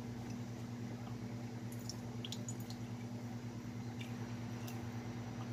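Fish sauce poured in a thin trickle from a bottle into a metal ladle over a simmering pot of soup, with a few faint clicks of bottle and ladle about two seconds in. A steady low hum runs underneath.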